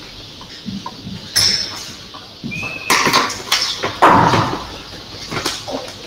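Whiteboard eraser wiping across the board in a few short swipes, with knocks and rustling in between.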